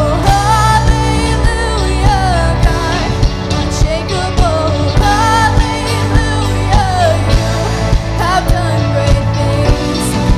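Worship song: a voice singing a melody over a band with sustained bass notes and a steady drum beat.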